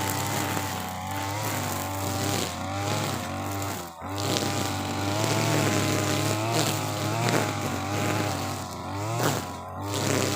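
Two-stroke brush cutter with a nylon trimmer head running at full throttle through thick grass, its engine note wavering as the load changes and dipping briefly about four seconds in and again near the end.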